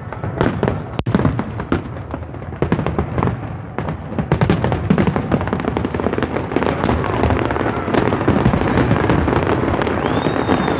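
Fireworks going off in rapid succession: a dense barrage of bangs and crackles that thickens and grows louder about four seconds in, with a brief high whistle near the end.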